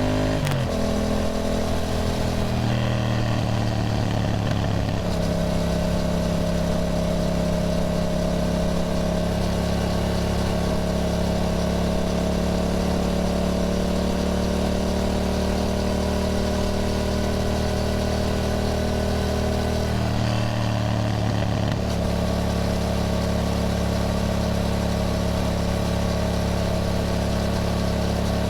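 Yamaha MT-07's 689 cc parallel-twin engine running under way. Its pitch drops sharply right at the start, holds steady through a long stretch, briefly changes about two-thirds of the way through, and then holds steady again.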